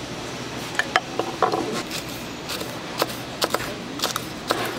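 Knife chopping sundae on a wooden cutting board: irregular sharp knocks, some in quick runs of two or three.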